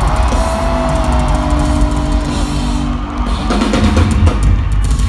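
Live metal band playing loudly, driven by dense drumming on bass drum and snare.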